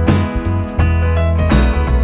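Background music: an upbeat track with guitar over a steady bass and beat.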